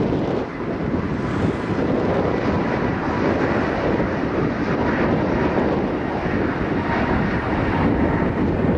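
Airbus A321neo jet engines running as the airliner rolls along the runway: a steady rush of engine noise with a faint, even whine. Wind buffets the microphone.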